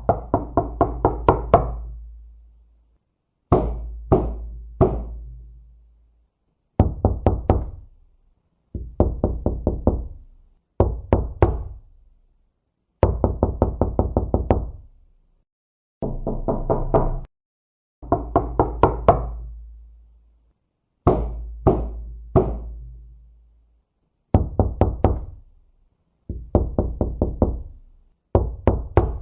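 Knocking on a door: about a dozen bursts of quick knocks, each burst of a few to a dozen raps with a short silent pause between them.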